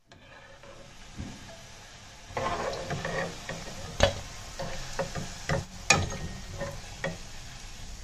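Fritters deep-frying in a kadhai of hot oil, sizzling and bubbling steadily, louder after about two seconds. A metal spatula knocks sharply against the pan a few times, loudest about four and six seconds in.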